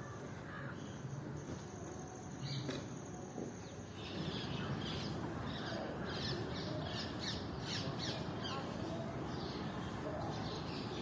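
Birds calling outdoors: short, high calls repeated many times a second in a busy run from about four seconds in, over a constant low background noise. A thin, steady high whine sounds through the first few seconds and then stops.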